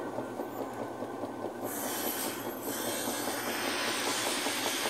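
Maytag Performa top-load washer in its spin cycle: the basket is spinning with a steady mechanical rattle, and about a second and a half in, a loud hissing rush joins it. The spin is working normally.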